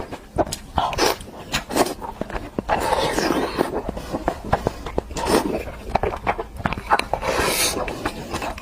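A person eating close to the microphone: irregular chewing and mouth smacking, made up of many short sharp clicks and brief noisy bursts.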